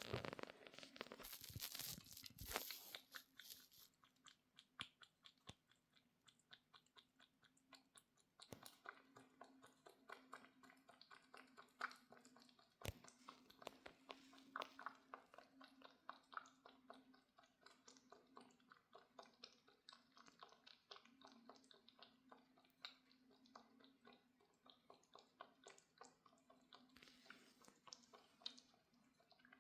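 A cat chewing crunchy food: a long, quick run of small crunches, louder in the first few seconds, over a faint steady hum.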